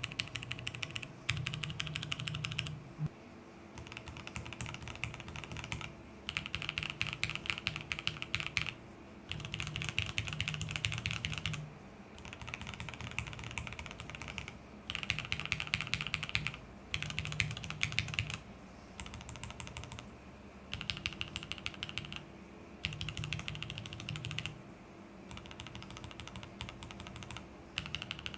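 Typing on a mechanical keyboard with budget linear switches (JWK Black and Gateron Milky Yellow) in a polycarbonate-plate board: quick runs of keystrokes lasting a second or two, broken by short pauses.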